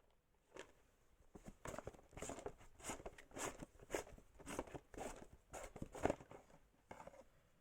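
A quick, irregular run of rustling, crunching handling noises, about a dozen short strokes close together, starting about a second in and stopping near the end.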